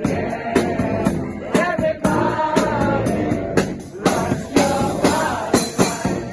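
Live brass band playing: massed horns holding and moving between notes over a steady drum beat of about two strikes a second.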